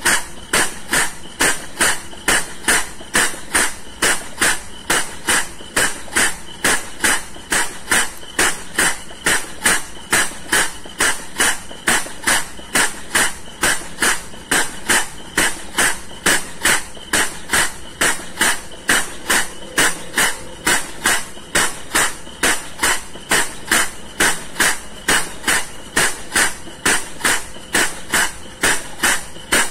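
Air-operated diaphragm pump running on compressed air from a compressor, chuffing with a sharp puff of exhaust air about two and a half times a second in a steady rhythm while it sucks residual crude palm oil from a barge tank.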